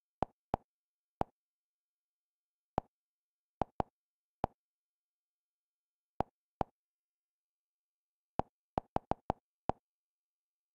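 Kodi's menu navigation sound, a short soft plop, played about fifteen times in uneven clusters as the cursor steps through the add-on menus, with nothing between the plops.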